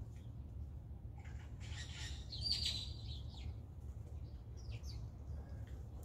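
Blue jay giving one long, harsh call from about a second in, followed by a few faint short calls. A steady low rumble runs underneath.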